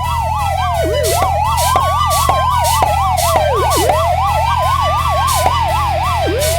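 Police car siren: a slow wail rising and falling about every three seconds, overlapped through the middle by a faster yelp that sweeps up and down several times a second.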